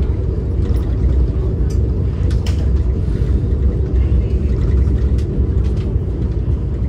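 Steady low rumble of a moving train heard from inside the coach: wheels running on the rails. A few sharp clicks and knocks come through it.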